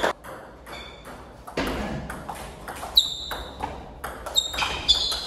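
Table tennis ball being hit back and forth in a rally that starts about three seconds in. Each strike on a bat or on the table is a short, sharp ping, roughly two a second.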